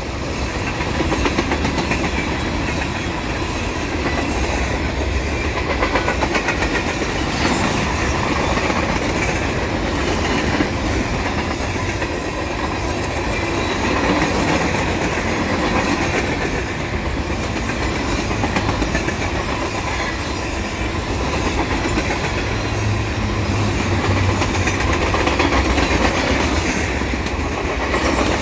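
Freight cars of a Canadian Pacific train rolling past: a steady rumble of steel wheels on rail, with clickety-clack as the wheels cross the rail joints.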